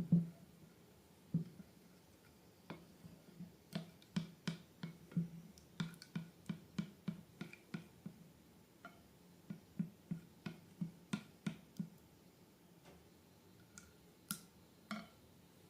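Slime being squished and pulled by hand, making an irregular run of short, sharp clicking pops, one to three a second, with brief pauses.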